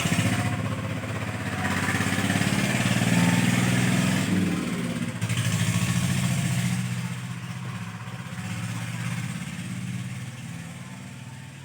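Motorcycle engine running steadily, dipping briefly midway and fading toward the end.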